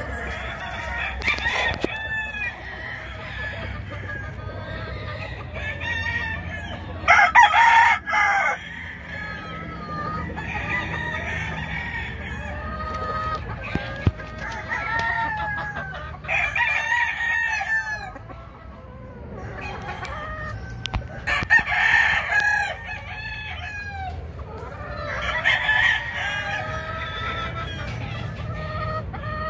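Blueface and Leiper gamefowl crowing several times, the loudest crows about a quarter and about three-quarters of the way through, with hens clucking throughout.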